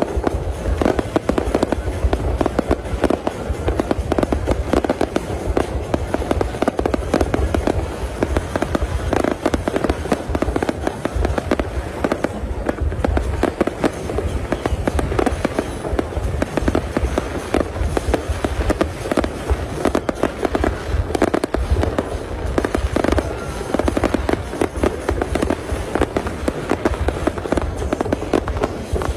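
Aerial fireworks shells bursting overhead in a dense, continuous barrage of bangs, with deep low booms underneath.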